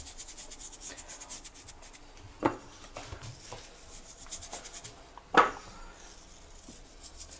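Fine table salt rubbed between fingers and sprinkled onto raw pike fillets on a wooden cutting board: soft, quiet rubbing with two brief louder sounds, about two and a half and five and a half seconds in.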